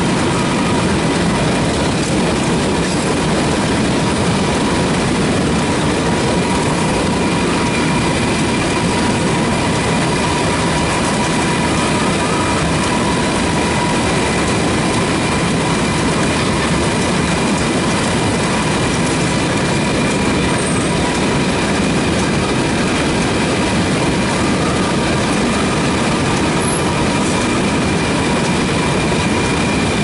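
Potato conveyors and grading line running loaded with potatoes: a steady mechanical noise of potatoes travelling along the belts and chains, with a faint steady whine above it.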